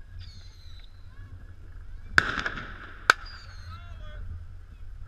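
Two sharp firecracker bangs about a second apart, the first trailed by a short rush of noise.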